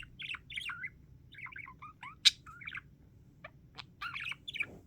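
Pet budgie (budgerigar) chattering softly while dozing: a run of short chirps and warbled notes, with one sharp, louder chirp a little after two seconds in.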